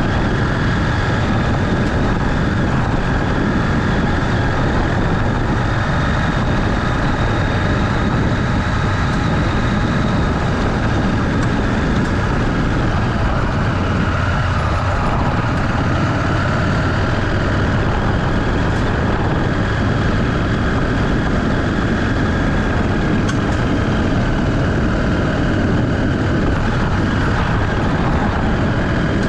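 Motorcycle on the move, engine running with wind noise in one dense, unchanging drone.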